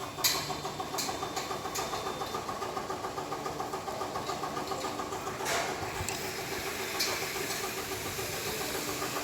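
Hydra crane's diesel engine running with a steady, rapid pulsing beat. A few sharp metallic clanks sound over it, several in the first two seconds and more past the middle.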